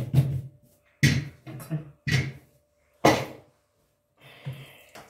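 Hands slapping and pressing a round of lahmacun dough against a tabletop: four thumps about a second apart, then a soft rustle near the end.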